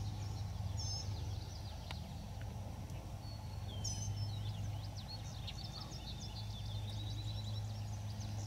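Birds chirping: many short, high, sliding calls scattered throughout, over a steady low hum.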